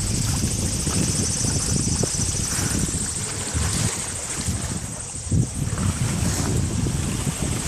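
Wind buffeting the microphone aboard a sailboat, a steady low rumbling rush that rises and falls in gusts.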